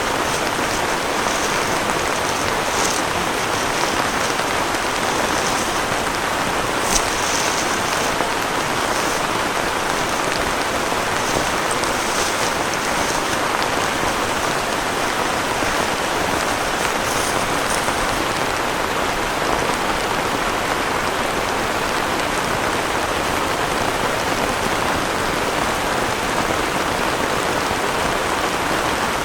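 Heavy rain falling steadily as a dense, even hiss, with a few sharper drop hits standing out now and then.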